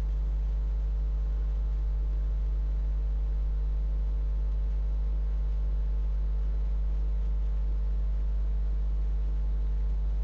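Steady low electrical hum with fainter higher overtones, unchanging throughout: mains hum picked up on the recording.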